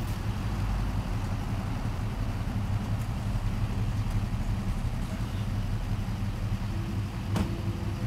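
Steady low mechanical hum, like an engine idling, with a single sharp click about seven seconds in.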